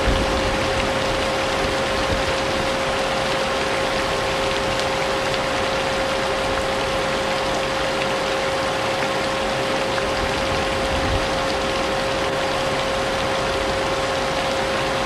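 Vacuum cleaner running steadily, a constant motor whine over a hiss of airflow, blended with rain. Brief low rumbles come at the start and about eleven seconds in.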